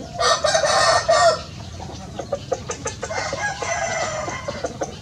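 Rooster crowing: a loud call about a second long just after the start, then a quieter, drawn-out call about three seconds in, with scattered short ticks between.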